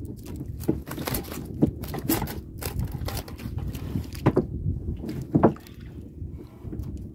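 Small boat at sea: wind rumbling on the microphone and water against the hull, with irregular knocks and scrapes as fishing line and tackle are handled at the boat's side.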